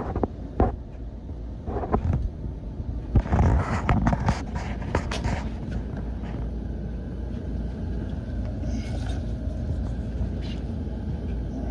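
Furnace running with a steady low rumble, while knocks and clatter from handling come and go, thickest around the middle. The furnace is running but in lockout.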